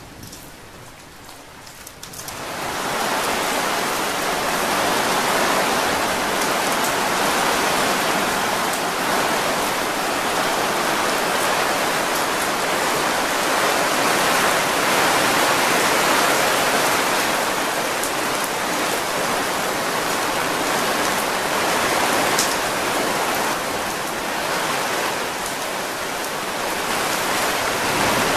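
Heavy rain hammering on a tipi's canvas, heard from inside the tipi. It comes in loud about two seconds in and then keeps up as a steady downpour.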